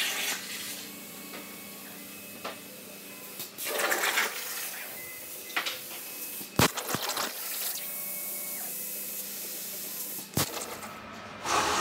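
CNC plasma cutter on a water table cutting 1.2 mm sheet steel: bursts of hissing with water spray, a steadier hiss between them, and two sharp clicks in the second half.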